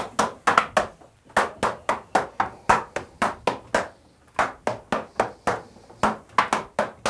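A run of sharp slaps or knocks in an uneven rhythm, about three a second, each with a short ringing tail, pausing briefly a few times.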